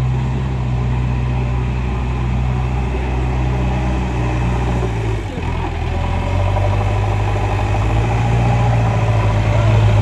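Backhoe loader's diesel engine running steadily. About five seconds in it dips briefly, then runs louder and harder as the machine drives forward with a full front bucket of soil.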